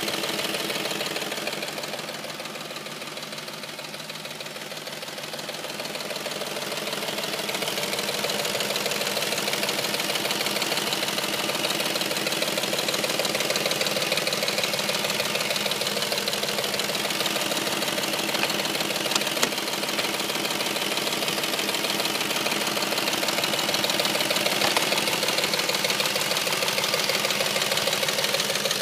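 Audi S4 engine running at idle with a loud, fast, steady ticking knock, a noise that comes on once the engine is warm. It is a little quieter for a few seconds near the start.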